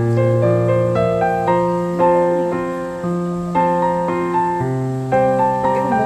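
Background piano music, with notes held and changing every half second or so.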